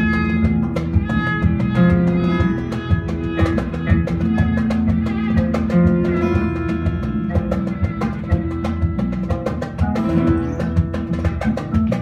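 A live band playing: oud, violin, acoustic guitar, electric bass and drum kit, over a steady drum beat.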